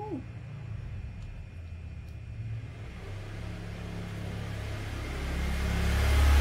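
A motor vehicle passing outside: a low rumble that grows louder over the last couple of seconds. A short squeaky call that rises and falls comes at the very start.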